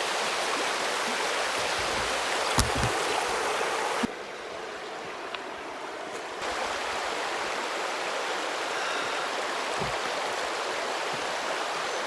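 River water rushing over rocks as a steady rush of noise, with a single sharp tap about two and a half seconds in. A third of the way through the rush turns quieter and duller for about two seconds, then returns.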